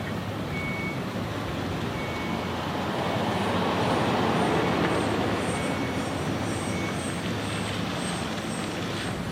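A heavy vehicle's engine rumbling, swelling in the middle and then easing off, with a backup alarm beeping at uneven intervals and a faster, higher-pitched beeping through the second half.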